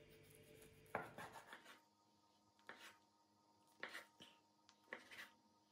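Broad-bladed kitchen knife slicing through a soft rolled dough log and knocking on a bamboo cutting board: a series of light, short knocks, one per cut, some in close pairs.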